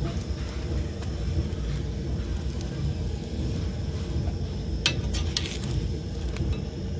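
Chapati frying in oil in a flat pan over the heat: a steady low sizzle, with a few sharp clicks about five seconds in.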